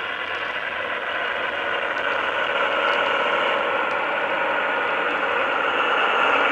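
Model HST power car's DCC sound decoder playing a Paxman VP185 diesel engine sound through its small on-board speakers. The engine runs steadily and grows slowly louder as the model comes closer.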